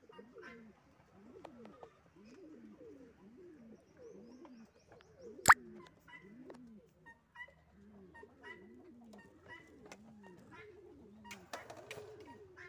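Several king pigeons cooing over one another, in repeated rising-and-falling coos. A single sharp click about halfway through is the loudest sound, and a short rustling burst comes near the end.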